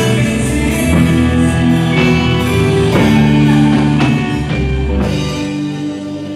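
A worship band playing a final passage on electric guitar, bass and drum kit, drum hits about once a second, the sound dying away near the end.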